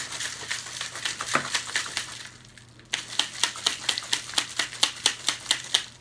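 Plastic shaker bottle shaken hard to mix pre-workout powder into water, each stroke a sharp rattle and slosh. It comes in two bouts with a short pause about two seconds in; the second bout is faster, about five shakes a second.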